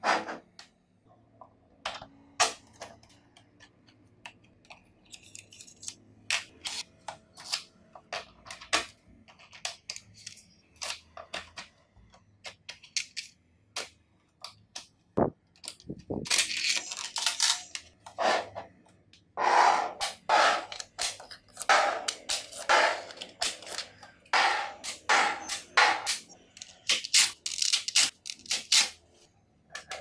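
Small magnetic balls clicking and snapping against each other as blocks of them are handled, with short scraping runs as a plastic scraper is pushed between rows to split them off. The clicks are sparse at first, then come in dense, rapid runs from about halfway on.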